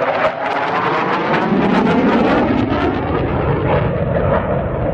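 Denel Cheetah C fighter jet's single Atar turbojet, a loud steady jet noise with a slowly sweeping, phasing tone as the jet flies past and climbs away.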